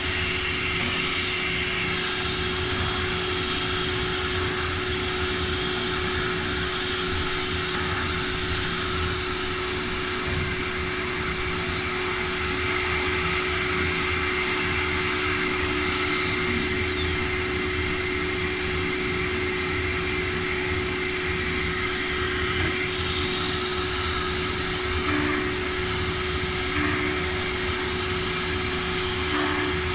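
CNC woodworking router running steadily: a constant whine with one held tone over an even mechanical hiss.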